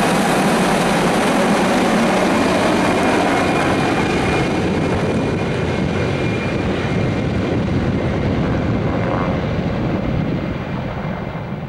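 Several MD500 and Mi-2 helicopters flying past together: dense rotor chop with a steady turbine whine, loud, easing off gradually and fading further near the end.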